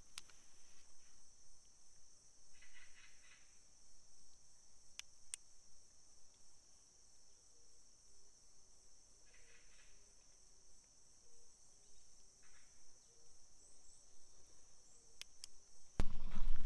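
Forest ambience: a steady high insect drone, with a few short chirping calls and a couple of sharp clicks. Near the end a much louder noise cuts in suddenly.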